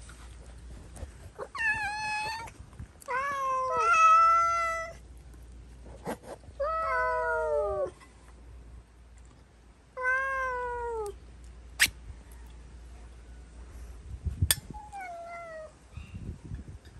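Hungry domestic cats meowing, about five drawn-out meows with two cats calling over each other about three seconds in. A couple of sharp clicks come later as the pull-tab lid of a food can is opened.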